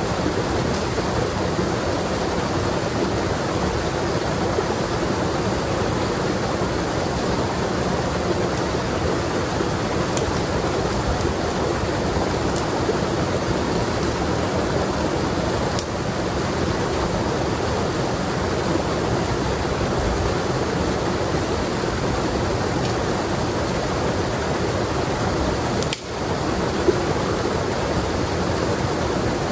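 Small waterfall pouring into a rocky mountain stream: a steady rush of falling water, with one small knock near the end.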